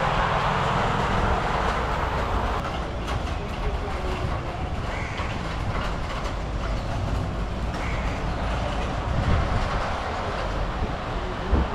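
A train in motion: a steady rumble with light clicking from the wheels.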